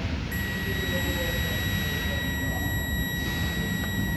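Electronic buzzer sounding one continuous high-pitched tone. It drops out for a moment at the start, then holds steady. It is a warning buzzer that goes silent once the red indicator light goes out.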